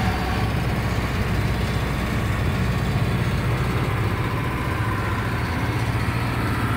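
Bus engine running steadily as the bus drives, a constant low drone with road noise, heard from inside the driver's cab.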